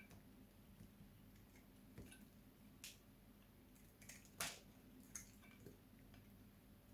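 Knife cutting soap: a few separate short, crisp cuts, the loudest about four and a half seconds in.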